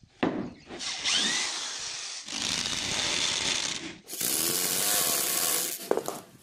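Electric drill driving wood screws into marine plywood, in two runs of about three and two seconds with a short pause between. There is a knock just before the end and a few lighter knocks before the first run.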